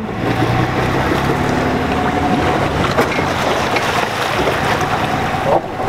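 A motor running steadily under wind on the microphone, with water churning around a boat's hull as it comes off its trailer at a ramp.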